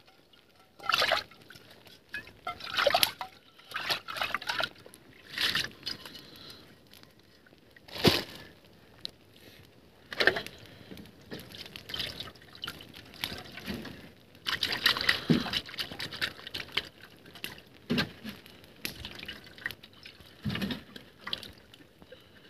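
Water poured from a plastic jerry can into a steel pot and sloshed around by hand to rinse it, in separate splashes and trickles with short pauses between. A sharp knock sounds about eight seconds in.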